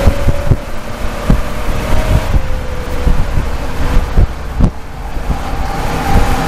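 Race car engine running at speed, heard from inside the cockpit under heavy wind buffeting on the microphone, its note dropping a little about two seconds in. Sharp knocks and rattles from the car break through several times, the loudest about two-thirds of the way through.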